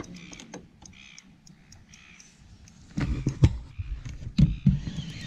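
Faint short calls like a bird's in the first seconds, then from about three seconds in a run of loud low thumps and knocks, as of the landing net and gear being handled against a small boat.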